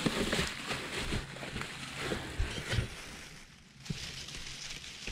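Footsteps in waders through dry, rustling grass and mud at a creek's edge, with some water sloshing; it gets quieter near the end.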